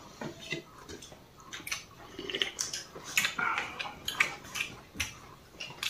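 Eating sounds at a table: a string of short clicks and scrapes of spoons on plates and steel bowls, with chewing.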